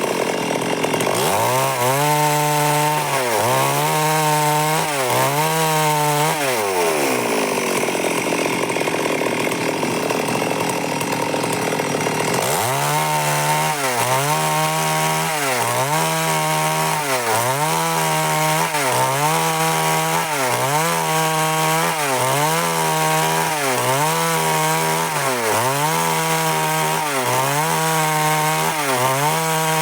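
Stihl MS 382 two-stroke chainsaw cutting wood at high revs, its pitch dipping and recovering about once a second as the chain bites. For a few seconds in the middle the revs fall away, then the rhythmic cutting resumes.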